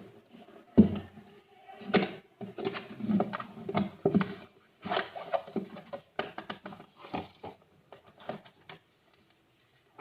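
Earphone packaging being handled and opened: irregular rustling with sharp clicks and taps, in uneven bursts that thin out near the end.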